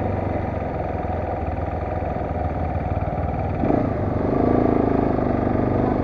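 Motorcycle engine running at low speed, with its note rising and swelling for a moment about four seconds in.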